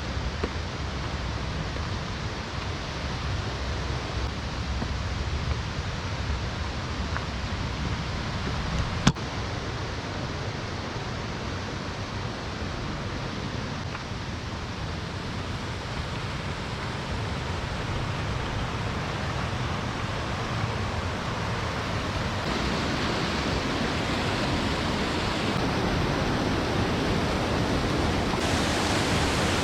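River water rushing steadily, growing louder toward the end, with a single sharp click about nine seconds in.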